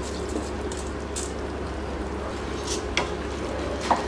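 Ladle stirring rice into masala stock in a steel cooking pot, with a few light clinks of the ladle against the pot, the loudest near the end, over a steady low hum.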